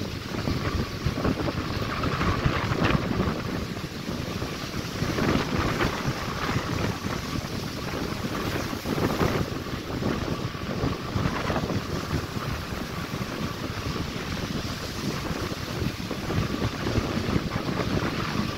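Wind buffeting the microphone over the steady wash of breaking surf.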